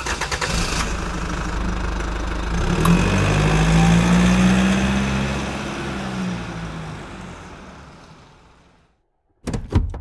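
A vehicle engine running and revving: its pitch climbs about three seconds in, then falls away and fades out. A brief crackly burst of noise follows near the end.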